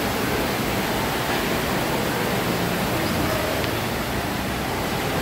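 Steady rushing background noise of an aquarium hall, with no distinct sounds standing out.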